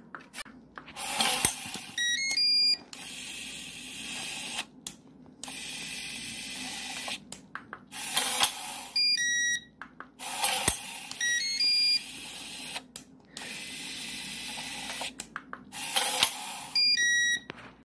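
Small geared electric motors of a prototype two-motor door lock run in short bursts, driving the bolt and latch. Each burst is soon followed by a quick tune of stepped electronic beeps from the lock's controller, about four cycles in all.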